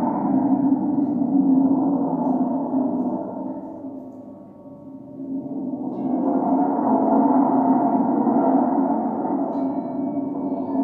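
Sustained ringing drone of a gong and singing bowls, fading down about four seconds in and swelling back up around six seconds.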